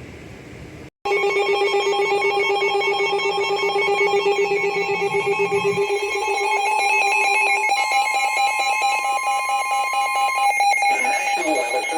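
Electronic emergency alert tone: several steady pitches pulsing in a fast, trilling warble, loud, starting sharply about a second in after a moment of hiss and a brief dropout.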